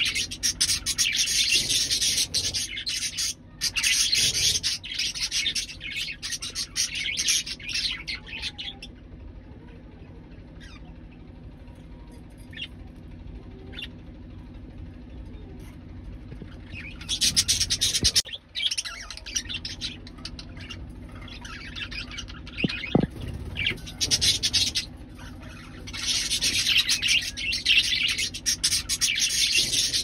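Budgerigars warbling and chattering in long, dense bouts, with a quieter stretch of several seconds in the middle.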